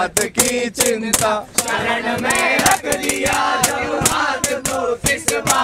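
A group of men singing a chant together in unison, keeping an even beat of about three hand claps and slaps a second on the train berth.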